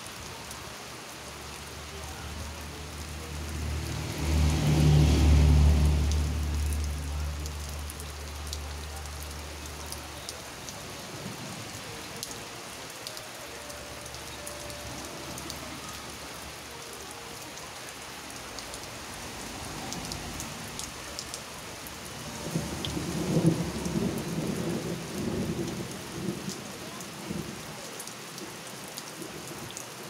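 Steady rain falling on plants and ground, with a loud roll of thunder that builds about four seconds in and fades over the next several seconds. A second rumble comes later, around twenty-three seconds in.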